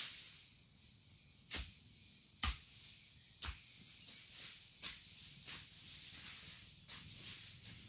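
A hoe chopping into the soil at a distance, about one strike a second and uneven, the strongest strikes in the first few seconds.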